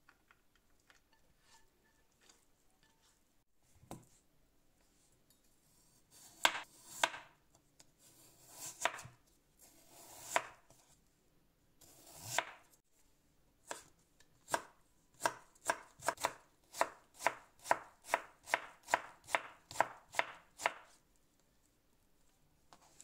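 Kitchen knife slicing peeled raw potatoes on a wooden cutting board. A few scattered strokes start about six seconds in, then about halfway through a steady run of quick strokes, about three a second, as the slices are cut into thin shreds.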